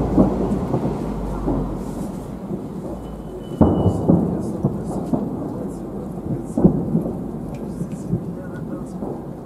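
Fireworks salute shells bursting overhead: a series of deep booms that rumble on like thunder, the loudest just at the start and about three and a half and six and a half seconds in.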